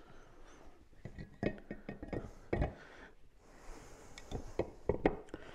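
Scattered light metallic clinks and taps of wheel bolts and nuts being handled and fitted while a small motorcycle's rim and hub are put together by hand. The sharpest taps come about halfway through and near the end.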